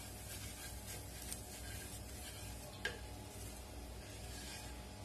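Wooden spatula scraping under a crisp rava dosa on a nonstick tawa as it is lifted and folded, with a faint sizzle of the oil and a light tick about three seconds in.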